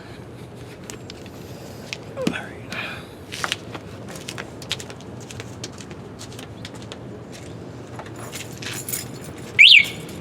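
Tools and parts being handled and set down, a run of scattered light clicks and knocks. A short falling squeak comes about two seconds in, and a brief high squeak near the end is the loudest sound.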